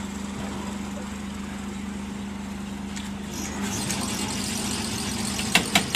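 Petrol pump humming steadily while the fuel nozzle is worked at a car's filler, with a hiss rising about three and a half seconds in and a few sharp clicks near the end.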